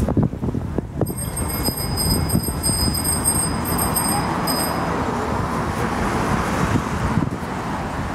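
Street traffic passing, with a steady low rumble and wind on the microphone. A thin high-pitched whine sounds from about a second in and stops after about four seconds.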